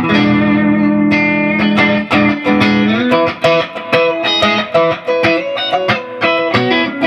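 Electric guitar on its middle pickup played straight through a Dr. Z MAZ18 tube amp head into a 1x12 cabinet, with no pedals: a chord rings out for about three seconds, then a run of quick picked notes follows.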